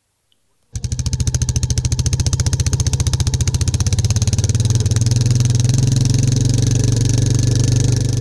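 Single-cylinder Royal Enfield motorcycle engine running with a fast, even exhaust thump. It cuts in abruptly after a brief silence, and the note rises a little about halfway through.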